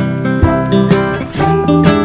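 Background music: strummed acoustic guitar playing chords in a steady rhythm, with no singing.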